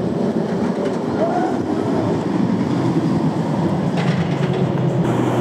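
Rocky Mountain Construction hybrid roller coaster train running along its steel track on a wooden structure, a steady rumble. A brief high chirp rises and falls about a second in.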